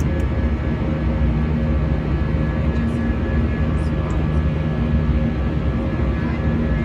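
Cabin noise of an Airbus A319-100 climbing out, heard from a seat over the wing: its jet engines and the airflow make a steady rumble, with a few steady hums laid over it.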